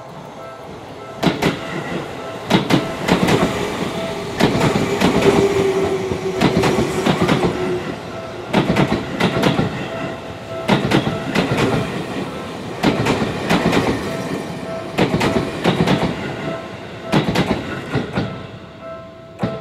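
A Seibu commuter train passing over a level crossing, its wheels clacking over the rail joints in repeated groups, car after car, with a falling whine for a few seconds near the middle. The crossing's warning bell keeps ringing steadily underneath.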